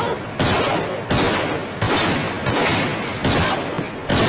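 A rapid series of loud gunshot-like bangs, about one every 0.7 seconds, each tailing off in a noisy decay: an edited intro sound effect.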